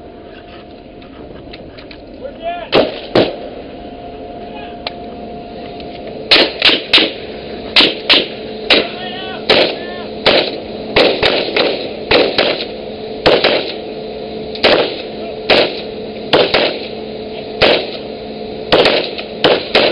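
Rifle gunfire: two single shots about three seconds in, then a steady string of single shots fired one at a time, roughly one to two a second, over a steady hum.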